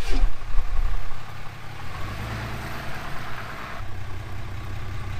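Ram pickup truck's engine running as the truck pulls forward across a concrete driveway, with a sudden loud sound at the start that drops quickly in pitch. A rolling hiss of tyres and engine fades out after about four seconds, leaving a steady low engine hum.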